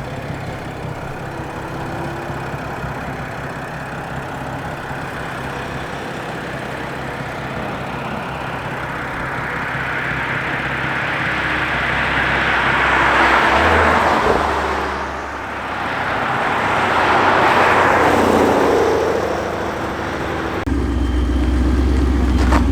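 Cars driving past on the road: a swelling engine-and-tyre noise that builds to a peak about two-thirds of the way in, dips, and passes again a few seconds later, followed near the end by a sudden low rumble.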